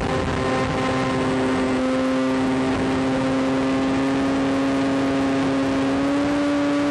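Electric motor and propeller of a Maxi Swift flying wing running steadily in flight, a constant drone with rushing wind noise underneath. The pitch steps up slightly near the end.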